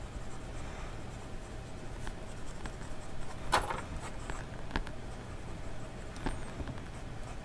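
Fine-nib fountain pen scratching across ruled notebook paper as it writes a word, a scribble and a small box. Soft continuous scratching with a few sharper, short strokes, the loudest a little past the middle.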